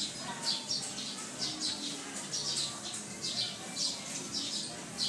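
Small birds chirping in a steady run of short, high chirps, about three a second.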